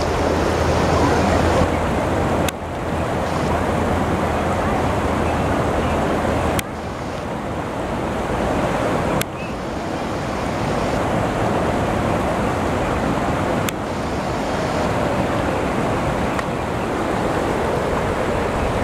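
Floodwater rushing down a street: a steady, loud rush of moving water. The sound jumps abruptly in level four times.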